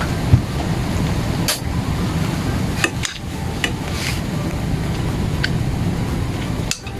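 A steady low rumble with several short sharp clicks, a utensil knocking against the pan while the hot dogs fry.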